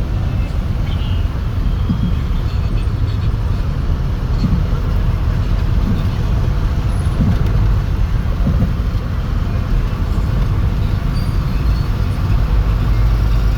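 Street traffic: vehicle engines running in a steady low rumble, with no single event standing out.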